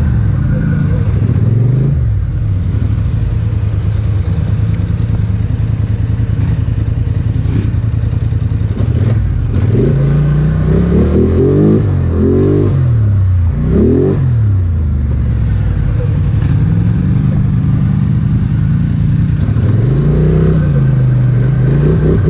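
Polaris Sportsman 850 XP ATV's twin-cylinder engine running under way, its pitch rising and falling with the throttle, with a run of quick revs about halfway through and a slower swell near the end.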